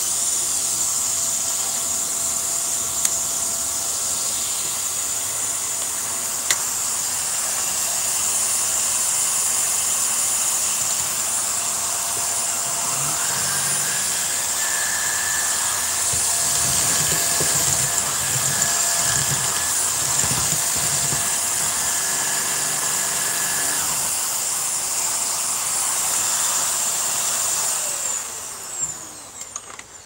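Hoover Air Steerable upright vacuum cleaner running steadily, its motor giving a high hissing whine as it sucks up debris. One tone in the whine rises a little before halfway. Near the end it is switched off and the motor winds down.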